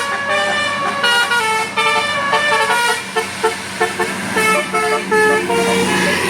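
Indonesian bus 'telolet' musical air horn (Basuri-type multi-trumpet horn) playing a tune of quick stepping notes, several notes a second, with a run of lower repeated notes near the end. A steady low hum runs underneath.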